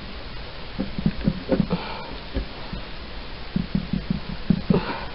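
Hands working the plastic cap of a Ramune soda bottle, trying to push the marble seal down to open it: scattered short handling knocks and clicks, in two clusters about a second in and toward the end.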